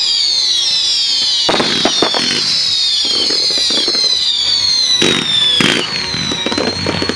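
Fireworks display firing: high whistles slowly falling in pitch, broken by a few sharp bangs and crackle, the loudest about a second and a half in and again around five seconds in.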